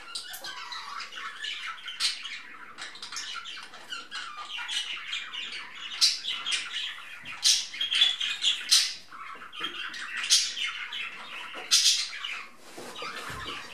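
Small birds chirping and chattering busily, many short calls overlapping, with a few sharper, louder calls standing out.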